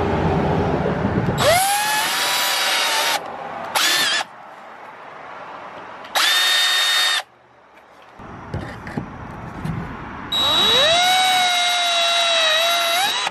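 Cordless drill boring holes through a kayak's plastic hull, run in several separate bursts. Its motor whine rises in pitch as it spins up, and the longest run comes near the end.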